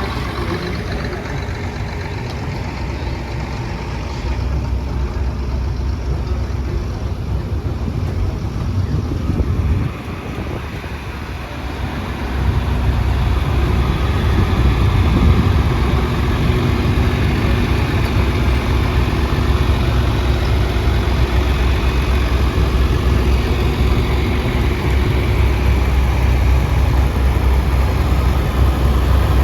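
Farm tractor engine running steadily, dipping briefly about ten seconds in and then growing louder a couple of seconds later.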